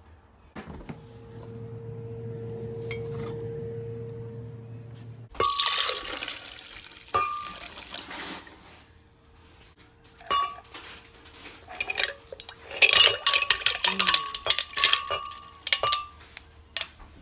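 A low steady hum for the first few seconds. Then liquid is poured into a glass blender jar, and near the end comes a quick run of sharp glassy clinks and knocks against the jar.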